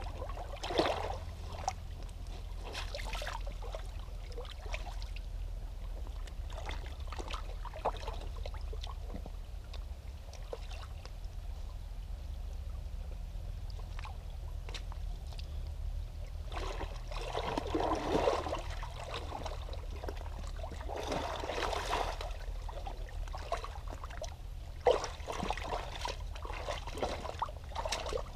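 Feet in soaked skate shoes shuffling and splashing in a shallow stream, over the steady sound of running water, with louder, irregular sloshes in the second half and a few sharp splashes.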